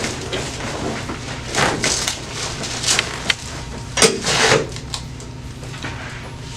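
Rustling, rubbing and creaking as a person turns over onto his back on a padded chiropractic table, with a few sharp clicks and knocks from the table.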